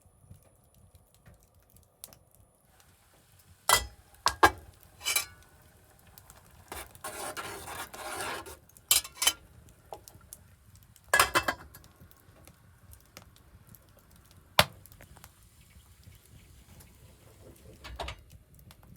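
Dishes and cutlery clinking and knocking, a handful of sharp separate clinks with a longer scraping stretch partway through.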